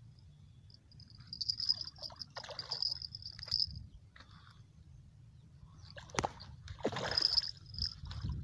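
A hooked fish splashing at the water's surface as a handline is hauled in, in two bursts about two and seven seconds in. A high insect buzz comes and goes.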